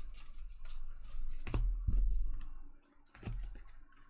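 Trading cards and packs handled on a table: a run of light, irregular clicks and taps with a few dull thumps.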